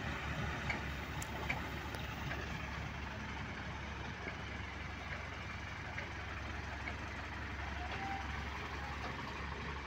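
Diesel engines of two truck-mounted hydraulic cranes running steadily while they lower a steel railway girder, with a few faint clicks in the first two seconds.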